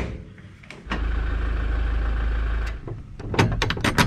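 A sharp clack, then a small electric motor whirring steadily for about two seconds, then a quick run of clicks and knocks.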